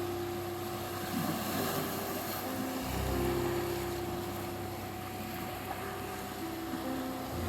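Sea waves washing on the shore under soft meditation music: a steady 741 Hz tone with held low synth chords that change about three seconds in and again near the end.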